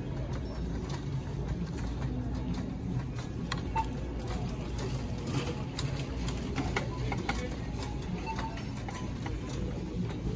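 Shopping cart rolling across a hard store floor: a steady low wheel rumble with frequent small clicks and rattles.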